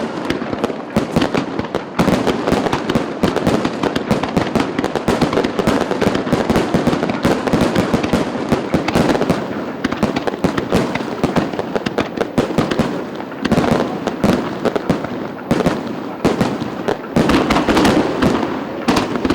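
Fireworks display going off in a dense, continuous barrage of rapid bangs and crackling, with a few louder bangs in the second half.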